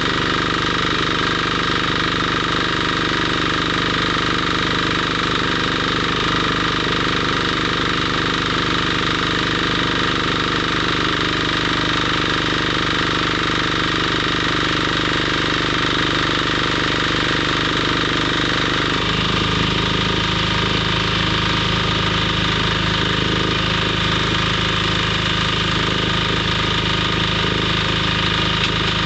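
A steady machine hum with a hiss above it; the low tone shifts to a different pitch about two-thirds of the way through.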